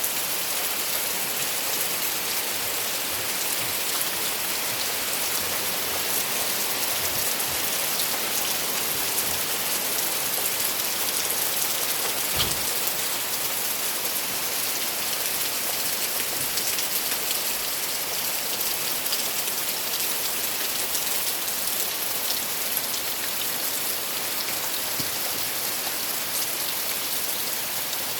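Steady heavy rain falling, with one brief knock about halfway through.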